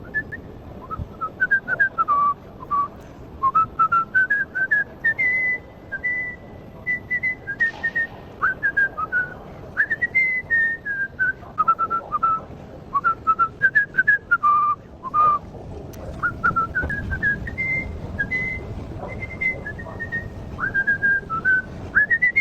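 A man whistling a tune: a long run of short, sliding notes that wander up and down in pitch, with a few brief pauses.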